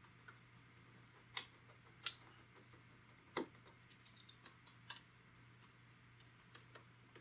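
Sharp little clicks and taps of small repair tools and tiny screws against an iPod Touch's metal frame as the screws are put back in. Three stronger clicks come about a second and a half, two seconds and three and a half seconds in, then a quick run of faint ticks, then a few more near the end.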